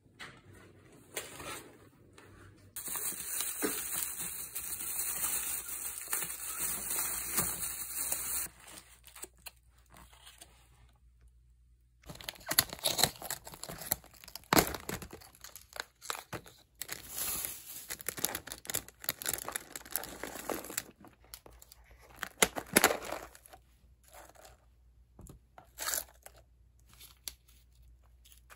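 A steady hiss for about six seconds, then irregular crinkling, rustling and tearing, as of plastic or paper being handled and torn.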